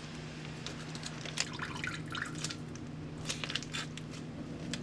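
Brine dripping and squishing as seasoned fried tofu pouches (yubu) are squeezed by hand over a stainless steel sink, in scattered short drips and crackles.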